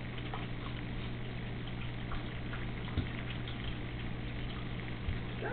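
Steady low hum and hiss of the room, with a few faint ticks and one soft knock about three seconds in, from young Doberman Pinschers moving about on the carpet and vinyl floor.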